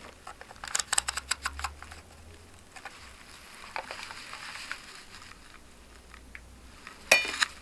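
A quick run of plastic clicks in the first two seconds, then fainter scattered clicks and rustles, from a handheld digital multimeter being handled: its rotary selector set to the resistance range and its test leads untangled.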